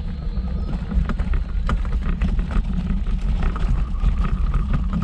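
Wheels rolling over a loose gravel path: a steady low rumble with the crunch and click of stones under the tyres.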